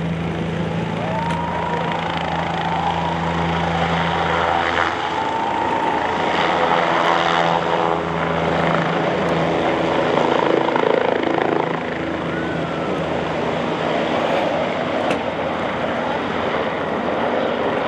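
Helicopter lifting off and flying away low: a steady low engine and rotor hum under a dense rush of rotor noise that builds to its loudest about halfway through.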